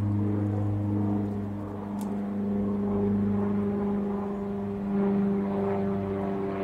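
An engine running steadily at an even pitch, a low drone with overtones that shift slightly, and a brief click about two seconds in.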